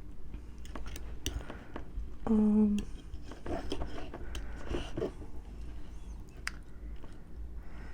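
Close-miked chewing and mouth sounds with small scattered clicks, and a short hummed "mm" about two seconds in.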